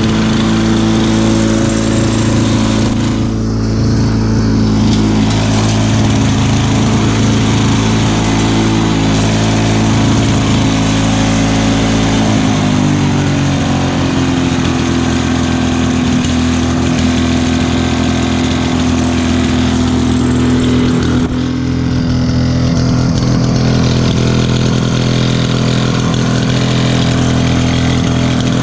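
Lawn-Boy walk-behind mower's 6.5 hp Duraforce two-stroke engine running steadily, its pitch easing down a little about halfway through and then holding. It is running well, with no exhaust leaks at its new muffler.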